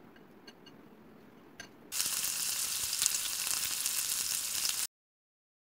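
Battered chicken pieces deep-frying in hot oil: a loud, steady sizzle with crackling that starts about two seconds in and cuts off suddenly near the end. Before it, a few faint clicks of chopsticks against a glass bowl as chicken is dredged in flour.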